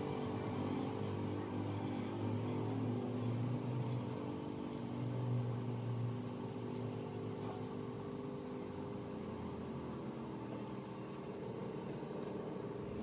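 Landscapers' power equipment engine running steadily, its pitch dropping slightly about nine and a half seconds in.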